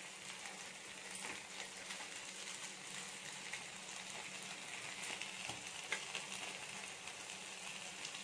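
Marinated chicken leg pieces sizzling steadily in ghee on a grill pan over a low flame. A few light clicks of tongs come through as the pieces are turned over.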